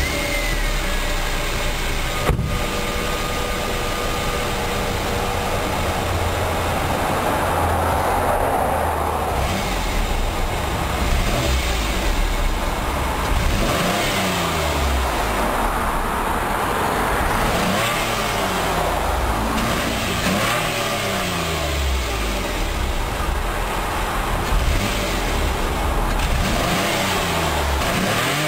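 Mercury Cougar's stock exhaust heard at the tailpipe: the engine idles and is revved repeatedly, several short throttle blips through the second half. It has a muffled, restricted tone that the owner calls congested.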